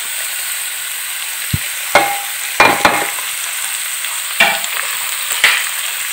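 Chopped carrot, onion and other vegetables sizzling in hot coconut oil as they are tipped into a pan and sautéed, with a steady frying hiss. A cooking utensil scrapes and knocks against the pan about half a dozen times.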